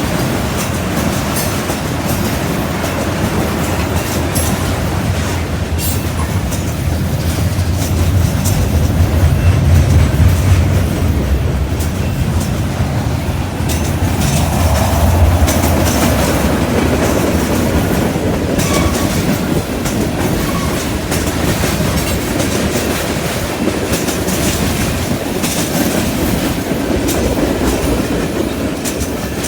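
Freight train cars rolling past steadily, their wheels clacking over the track, with a louder rumbling swell about a third of the way in.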